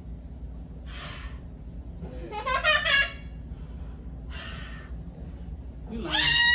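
Two short, high wordless cries, each rising in pitch, about two seconds in and again at the end, with soft breathy puffs between them.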